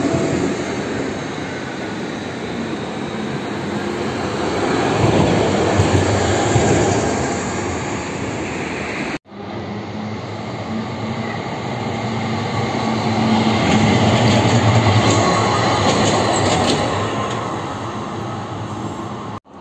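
Trams running on street track: wheels rumbling on the rails with a low motor hum, swelling as each tram passes close. There is an abrupt break about nine seconds in, then a second tram approaches and passes, the rumble building to its loudest a few seconds later.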